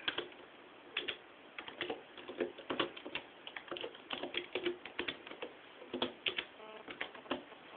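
Typing on a computer keyboard: irregular keystroke clicks, a few per second, with short pauses between runs.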